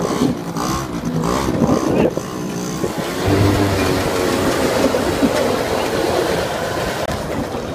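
Quad (ATV) engine running as it is ridden. In the first couple of seconds its pitch rises and falls in quick revs, then it runs more steadily.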